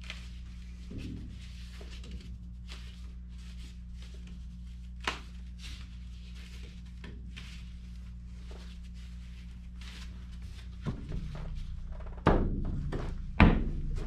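Small creaks and knocks from an Inuit frame drum being tightened, its lacing worked with a drumstick, over a steady low hum. About two seconds from the end the drum, its skin freshly tightened, is struck with the stick: loud drum beats that ring on.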